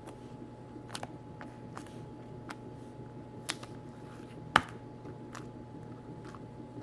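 Pink flarp noise putty being squeezed and pulled by hand, giving off small, irregular sticky clicks and pops, with one louder pop about halfway through.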